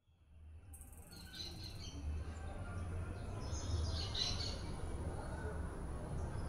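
Outdoor ambience fading up from silence: birds chirping over a low steady rumble, with a thin steady high-pitched tone joining about a second in.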